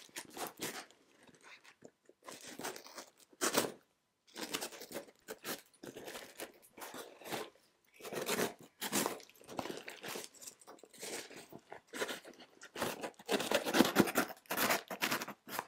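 A parcel being unwrapped by hand: irregular crinkling, rustling and tearing of packing material and a cardboard box, in bursts, loudest a few seconds in and again near the end.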